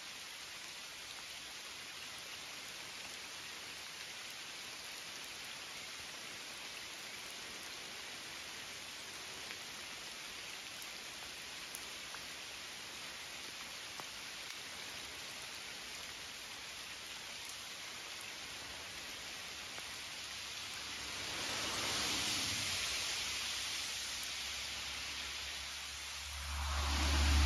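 Steady rain falling on leaves and water, an even hiss. About 21 seconds in the hiss swells for a few seconds, and near the end a loud low rumble comes in.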